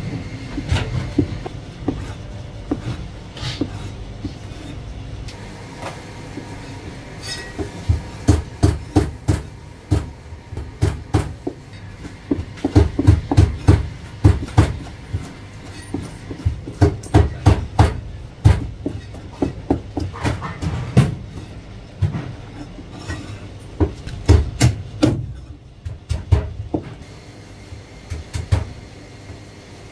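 Heavy Chinese cleaver chopping marinated meat on a cutting board: sharp knocks in quick runs, with short pauses between runs.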